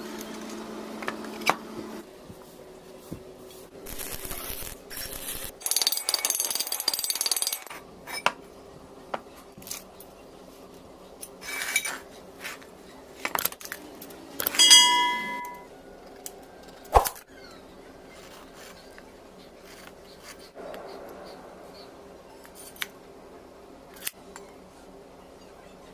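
Metal workshop handling: scattered clicks, knocks and clinks of metal parts and hand tools, with two short stretches of scraping noise early on and, about fifteen seconds in, a metal piece ringing clearly after being struck, then a sharp knock.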